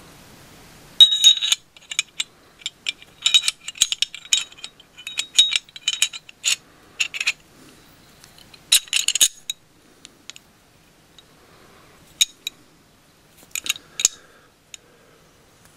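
Steel slide and barrel of a field-stripped Walther PPQ 9mm pistol clicking and clinking against each other as they are handled and fitted together. The clicks come in quick clusters of sharp metallic clinks, then only a few single clicks near the end.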